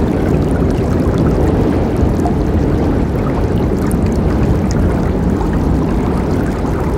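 A river running in a steady, deep rush of water, unbroken throughout.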